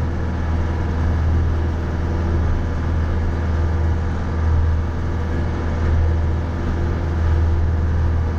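Mahindra 3550 tractor's diesel engine running steadily, a low drone that swells slightly now and then.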